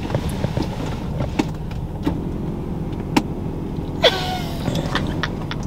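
Inside a car, a small electric motor whirs steadily for about two seconds, over a low steady cabin rumble. Scattered clicks and shuffling of movement come before it, and a short rustling burst follows as it stops.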